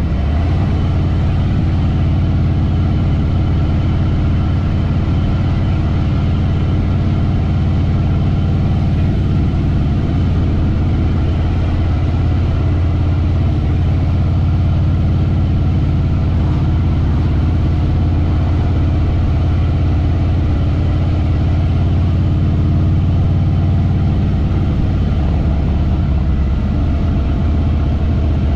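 Harley-Davidson Fat Boy Lo's air-cooled V-twin engine running steadily, its note shifting slightly about three seconds before the end.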